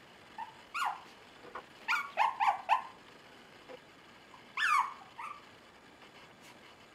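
Five-week-old Bolonka Zwetna puppies yipping and squealing as they wrestle: short high yips that each drop in pitch, one a little before a second in, a quick run of four around two seconds in, and two more near five seconds.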